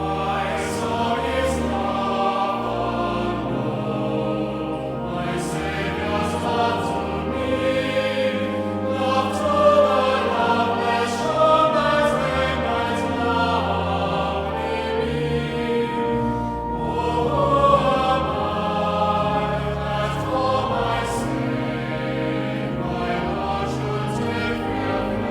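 Choral music: a choir singing slow, sustained harmony.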